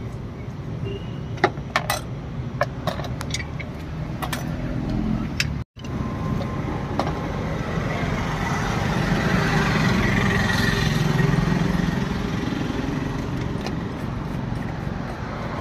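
Roadside traffic noise, with a few sharp clinks in the first few seconds and a vehicle passing, swelling louder and fading, in the second half.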